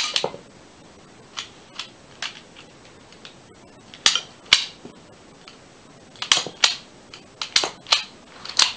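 LEGO rubber-band blowback pistol firing shot after shot: sharp plastic clicks and snaps of the mechanism, the loudest at the very start and the rest in clusters every second or two.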